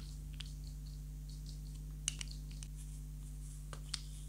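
Small hard-plastic clicks and ticks as a toy stamp and its cap are handled, with two sharper clicks about two seconds in and near the end. Under them runs a steady low hum from a pet cat in the background.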